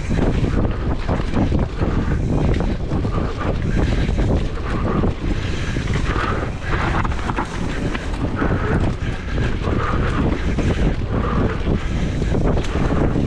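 Enduro mountain bike ridden fast down a trail: wind buffeting the microphone over the steady rumble of tyres on dirt, with constant small knocks and rattles from the bike over rough ground.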